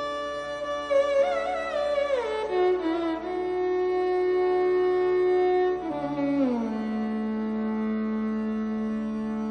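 Carnatic-style instrumental background music: a single melody line slides down twice in ornamented glides, each time settling on a long held note over a steady drone.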